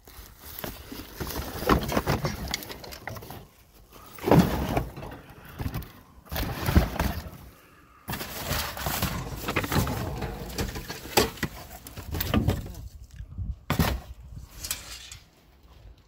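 Plastic sheeting and cardboard boxes crinkling and rustling as they are rummaged through by hand, in irregular bursts with short pauses between.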